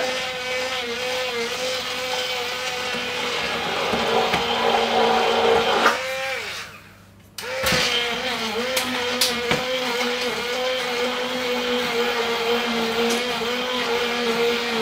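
Handheld stick blender motor whirring in a bowl of wet cake batter, working lumps of butter into it. The motor winds down and stops about six seconds in, then starts again a second and a half later and runs steadily, with a couple of light ticks as the blade head touches the bowl.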